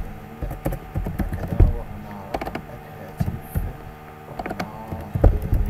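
Computer keyboard being typed on in irregular clicks and taps, over a steady low hum.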